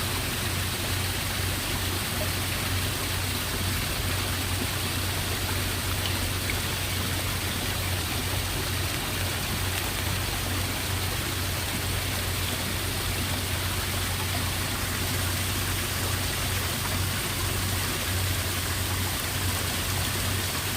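Steady rushing of flowing water, an even noise that does not change, with a constant low hum underneath.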